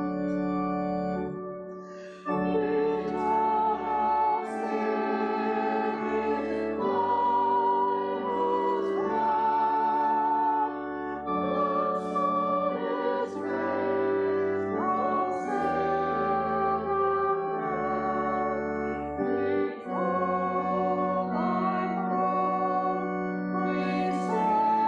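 Choir and congregation singing a hymn together to held organ chords, with a brief pause about two seconds in before the next line.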